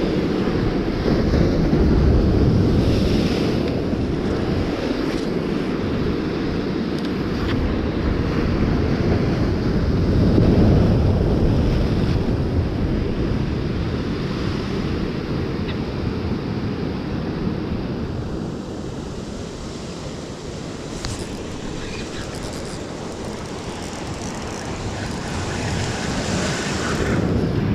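Sea surf breaking and washing against rocks, mixed with wind buffeting the microphone. The wash swells louder about two seconds in and again about ten seconds in, then eases off past the middle.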